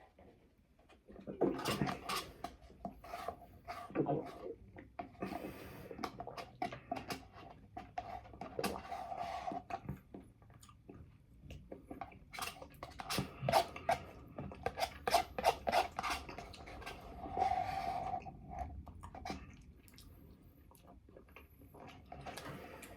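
Rubbing and scraping of food containers and utensils, with irregular clicks and short squeaky rubs, starting about a second in and dying down near the end.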